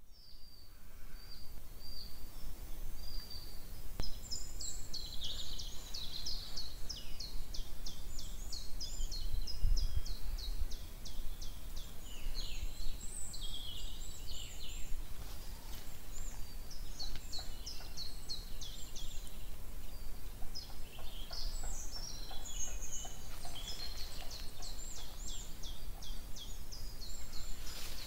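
Several small songbirds singing, with rapid high trills and chirps, over a low rumble that swells briefly about ten seconds in.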